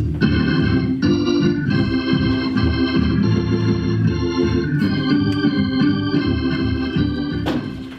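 Organ playing held chords over a moving bass line, stopping abruptly near the end.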